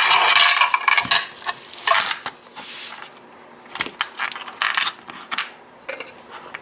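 A ring of metal keys jangling and clinking as it is handled and set down on a pinning tray. A dense clatter in the first second is followed by a run of lighter metal clicks that thins out.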